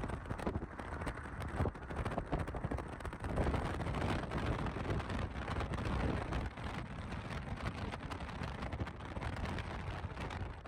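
Ocean surf washing on the beach, with wind buffeting the microphone: a steady rushing noise, heaviest in the low end, swelling and easing.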